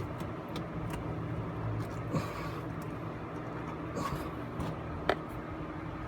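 Light clicks and taps of a spin-on oil filter being screwed on by hand, over a steady low background hum.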